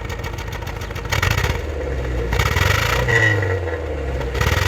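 Honda City car engine revved a few times, its pitch rising and falling with each blip of the throttle. The engine misfires at idle and under acceleration, a fault later traced to the fourth cylinder not firing.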